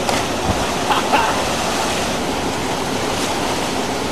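Steady rush of a waterfall and river rapids pouring into a swimming pool.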